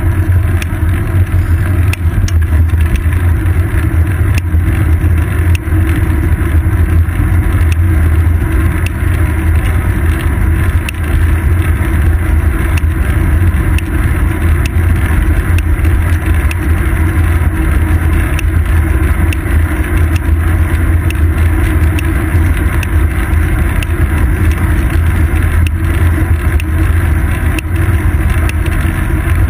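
Steady low rumble of wind and road vibration picked up by a seat-post-mounted GoPro Hero 2 on a moving bicycle, with frequent small clicks from bumps in the road surface.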